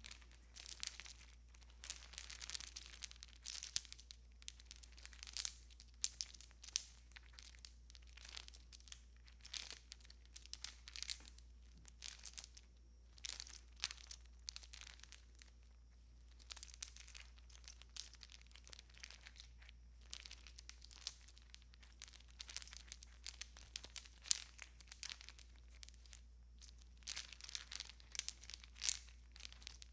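Strand of Christmas tree lights being handled and strung: the wire and plastic bulbs rustle and click against each other and the branches in irregular bursts, with short pauses.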